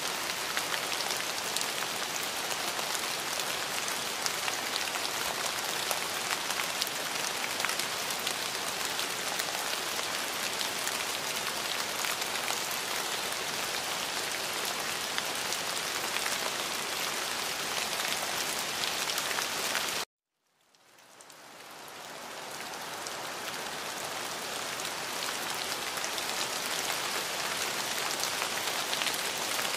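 Steady rain falling, an even hiss full of fine drop patter. About two-thirds of the way through it cuts out suddenly to silence for a moment, then fades back up over a couple of seconds, as a looped rain track restarting.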